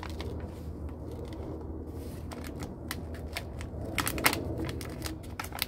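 Hands pulling apart a root-bound collard seedling's root ball, the soil and roots crackling and snapping in a run of sharp clicks that come thickest about four seconds in.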